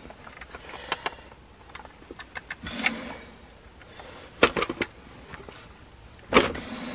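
Wooden snap traps being handled on a gravel floor: scattered clicks, knocks and scrapes, with the loudest knocks a little past the middle and near the end.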